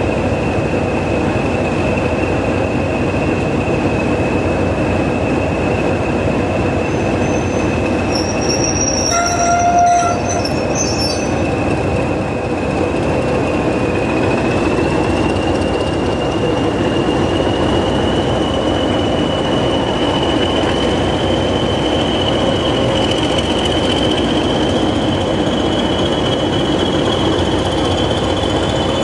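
Pair of Class 20 diesel locomotives working a train, their English Electric engines running hard under a high, steady whistle that climbs slightly in pitch from about halfway. A short tonal note sounds about ten seconds in.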